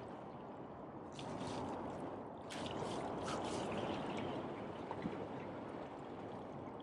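Small waves washing against the rocks of a jetty: a steady wash of water, with a few brief splashy hisses around the middle.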